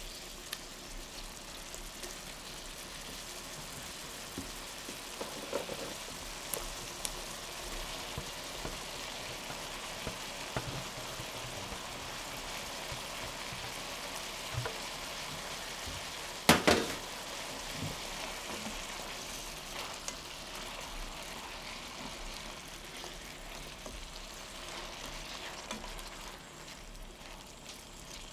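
Sliced red onion, red bell pepper and, partway through, strips of rump steak sizzling in a stainless-steel sauté pan while a silicone spatula stirs them, with small scraping ticks. A single sharp knock about halfway through is the loudest sound.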